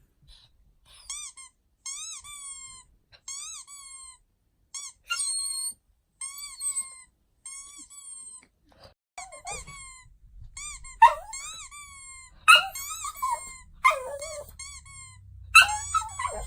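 Squeaky toy sound effect played over and over: short, high squeaks that rise and fall in pitch, about one or two a second. From about ten seconds in, a dog answers with several short, louder cries, and there is low rustling of movement.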